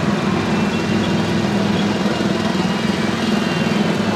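Small petrol engines of Disneyland Paris Autopia cars, running as a steady low drone.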